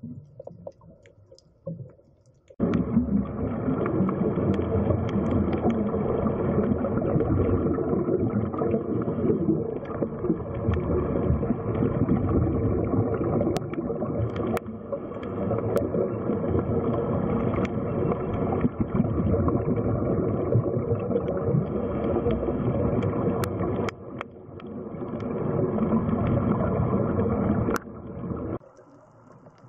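Steady, muffled rumbling noise of the camera's own underwater recording. It cuts in about two and a half seconds in, dips briefly about three-quarters of the way through, and drops away just before the end.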